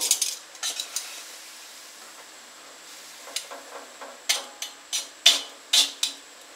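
Metal tongs clinking and scraping against a wok while stirring noodles in boiling water, a few clicks at first and then a run of sharp clinks in the second half, over a steady hiss.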